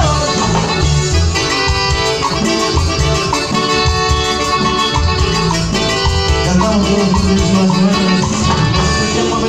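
Live cumbia band playing, with electric guitar, keyboard and drums.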